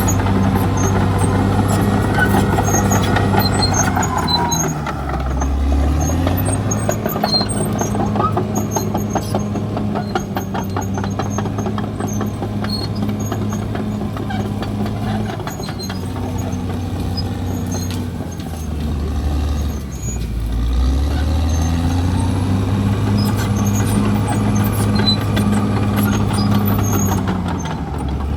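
Caterpillar D6R XL bulldozer's diesel engine working under load. Its pitch drops sharply as the engine lugs down, about five seconds in and again about twenty seconds in and near the end, then climbs back each time. A fast rattling runs through the middle.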